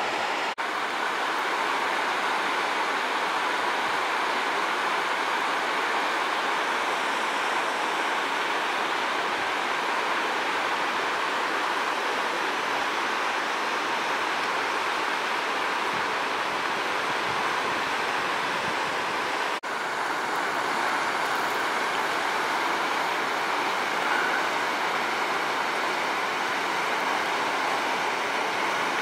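Whitewater rapids of a river in flood: a steady, loud rush of water pouring over and between rocks, broken by two brief drop-outs, one just after the start and one about two-thirds of the way through.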